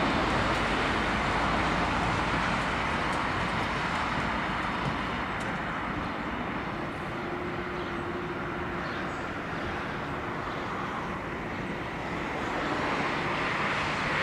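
Airbus A330-202 airliner's jet engines running loud and steady as it rolls out after landing, typical of reverse thrust; the noise eases off toward the middle and swells again near the end.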